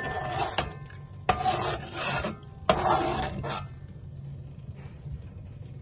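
Slotted metal spatula scraping and stirring around a metal pot, toasting curry powder in hot oil: a knock, then two rasping strokes of about a second each that begin with a clink, then quieter from about three and a half seconds in.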